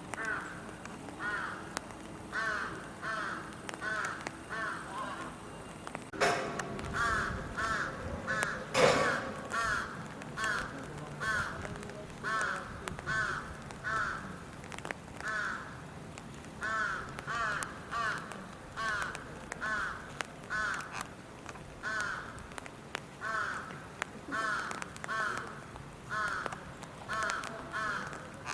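A crow cawing over and over, short arched calls at about two a second. A louder rumbling noise starts suddenly about six seconds in and dies away by about nine seconds.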